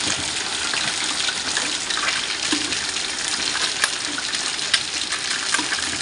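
Hot oil sizzling steadily around a whole red tilapia deep-frying in a pot, a dense crackling hiss with a few sharp clicks as the fish is worked with wooden chopsticks to turn it.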